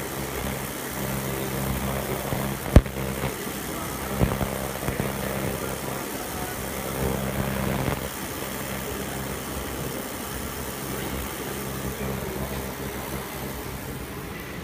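100 W fiber laser cutting machine running as it works a metal plate: a steady mechanical hum that fades to an even hiss about halfway through, with one sharp click about three seconds in.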